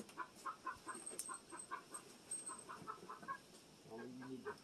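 Chickens clucking faintly in a quick run of short notes, about four a second, followed near the end by a short, low pitched sound.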